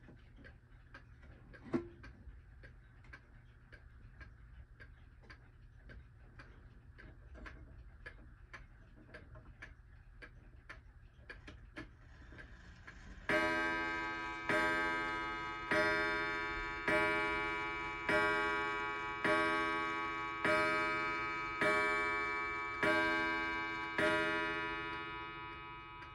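1920s Seikosha eight-day pendulum wall clock ticking steadily, with one sharp knock about two seconds in. About halfway through it strikes the hour: ten ringing strokes a little over a second apart, each fading away, striking ten o'clock.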